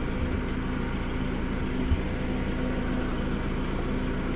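A motor running steadily at one unchanging pitch, a continuous hum with no revving. A single brief knock about two seconds in.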